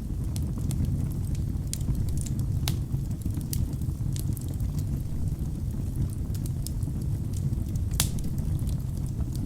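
Wood fire burning in a fireplace: a steady low rumble of flames with scattered sharp crackles and pops from the logs, two louder pops near 3 and 8 seconds in.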